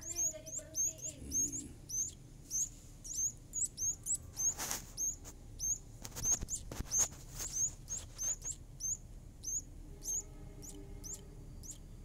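Nestling birds giving begging calls: thin, high chirps repeated steadily about two or three times a second, the sign of hungry chicks. A brief rustle comes about four and a half seconds in, and a few sharp clicks come soon after.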